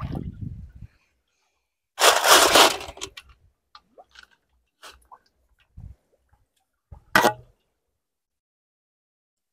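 Shallow muddy field water splashing and sloshing as someone wades and gropes for snails by hand: a loud splash about two seconds in, scattered small drips and squelches, and a short sharp splash about seven seconds in.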